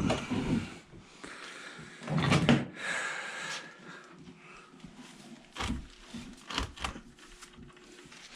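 Handling noise: a few knocks and thumps, with a short hiss about three seconds in.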